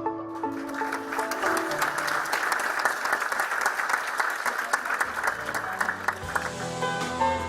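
Audience applauding over background music; the clapping starts about half a second in and fades near the end.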